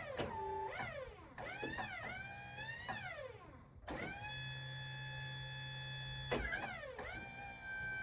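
Portable sawmill's hydraulic log-handling whining as the log is rotated. Its pitch sweeps up and down several times, holds steady for about two seconds with a low hum under it, then rises and holds again near the end.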